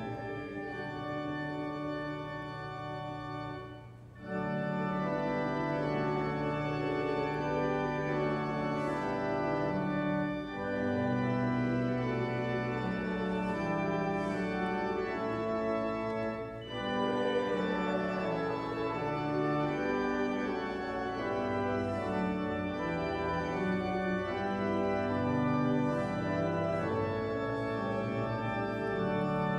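Church organ playing slow, sustained chords in phrases, with a short break between phrases about four seconds in and smaller breaks near ten and seventeen seconds.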